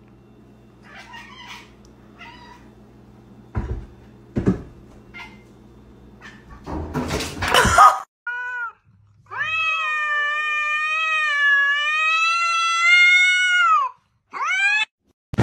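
A cat yowling: a short call, then one long, wavering, drawn-out call lasting about four seconds, and a short rising call after it. Before the calls come a couple of knocks and a loud, noisy clatter.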